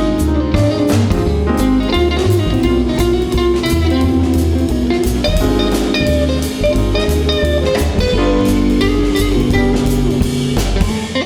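Jazz ensemble playing an instrumental passage, with guitar over electric bass and drum kit in a steady groove.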